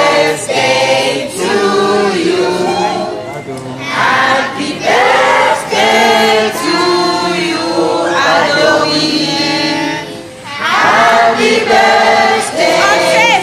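A group of voices singing together, choir-like.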